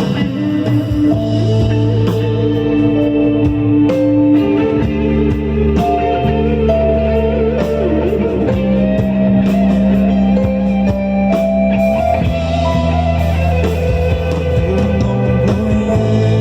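Live band playing an instrumental passage of a slow worship song: electric guitar lines over held bass and keyboard chords, with light drums.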